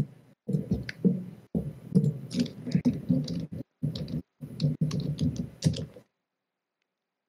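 Typing on a computer keyboard: a quick, irregular run of key clicks that stops about six seconds in.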